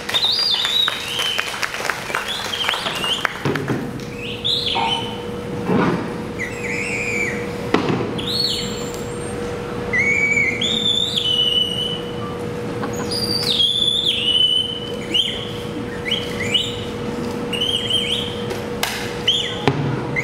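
Bird-like chirps and whistles: many short notes that rise and then hold. Beneath them are a steady hum and a few knocks.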